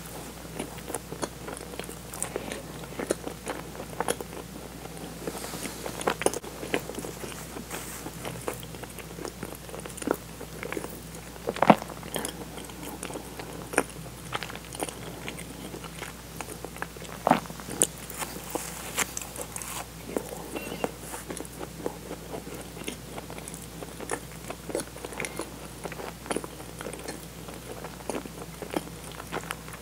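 Close-miked chewing and biting of a soft, sugar-dusted cream-and-bean-paste doughnut: wet mouth sounds and lip smacks, with a few sharper clicks standing out.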